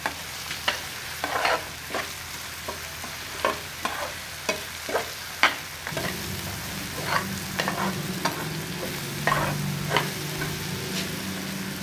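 Onion, garlic, tomato and chilli masala with ground spices frying in ghee in a metal frying pan, sizzling while a metal spatula stirs and scrapes the pan with short clinks every half second or so. A steady low hum comes in about halfway through.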